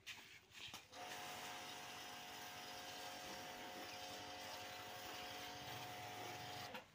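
Electric pressure washer running while its jet sprays water onto a van: a steady motor hum over the hiss of the spray. After a couple of brief spurts it settles in about a second in, and it cuts off suddenly shortly before the end.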